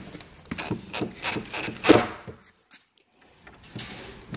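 Parts of an electronic keypad deadbolt being fitted together by hand against the door: a run of small clicks, knocks and rubbing. The loudest knock comes about two seconds in, followed by a short silent gap before more clicking.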